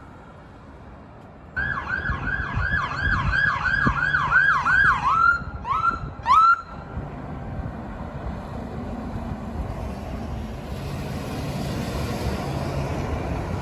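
Emergency vehicle's electronic siren in a fast yelp, about two rising-and-falling sweeps a second, then two short separate whoops before it cuts off. Steady road traffic and engine noise continue after it.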